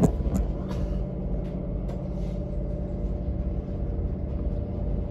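Tyne and Wear Metro train running, heard from inside the front car as a steady low rumble, with two sharp clicks at the start and a few fainter ticks in the first two seconds.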